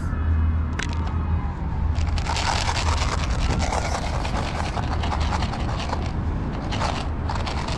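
Outdoor ambience: a steady low rumble under scraping and crunching noises with scattered clicks, and a faint tone falling in pitch over the first two seconds.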